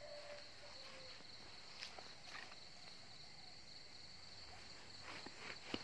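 A steady, faint chorus of night insects, crickets trilling at one high pitch. A few short snaps and rustles of dry grass underfoot break in, the loudest near the end.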